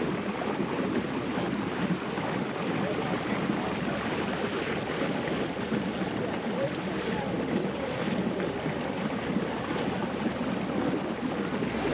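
Boat under way on the water: a steady rush of water and engine noise, with wind buffeting the microphone.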